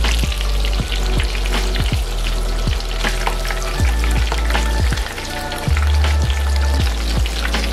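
Panko-breaded mozzarella bites deep-frying in vegetable oil: a steady sizzle with fine crackling.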